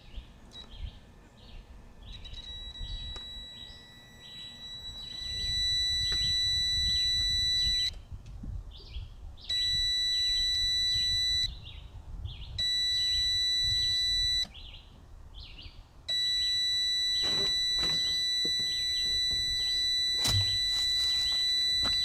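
Craftsman digital multimeter's continuity beeper sounding a steady high-pitched tone in four stretches, starting about two seconds in and cutting off three times for a second or two as the ignition key is switched on and off. The beep means the kill switch wire is grounded with the key off, and the silences with the key on show the kill switch circuit is working.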